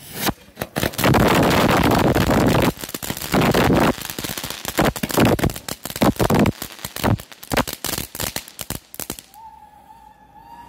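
Ground firework fountain going off with dense, continuous crackling, loudest in its first few seconds. It then thins into separate cracks and pops that die away about nine seconds in.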